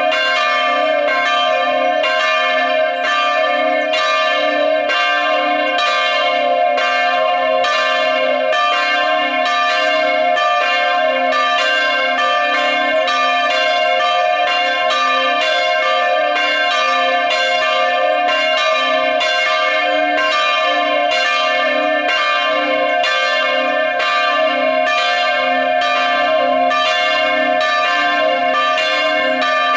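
A chapel's church bells ringing together in plenum, all bells swinging at once. Strikes come a little faster than one a second, each ringing into the next, in an unbroken peal.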